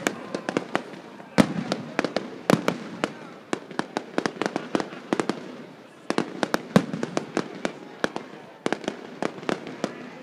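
Victory-lane pyrotechnic spark fountains crackling, a rapid, irregular string of sharp pops.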